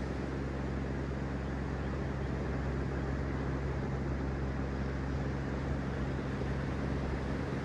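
Steady rushing ocean surf with no distinct wave breaks, over a low, steady hum.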